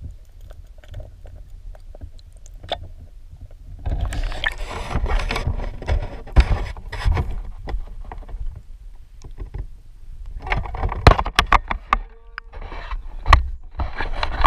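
Underwater action camera lifted out of the river: muffled, quiet underwater sound for the first few seconds, then water splashing and running off the camera, with sharp knocks and bumps as the camera housing is handled.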